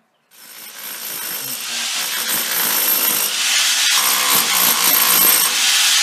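Rotary hammer with a chisel bit hammering into a plaster and brick wall, chipping out masonry to deepen a hole. It is a loud, continuous rattling chatter that starts just after the beginning and builds over the first couple of seconds.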